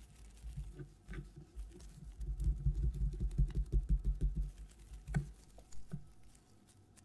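Gloved fingers pressing and rolling a sheet of whole wheat dough into a log on a work mat: a run of quick soft pats, busiest in the middle, with a few light clicks near the end.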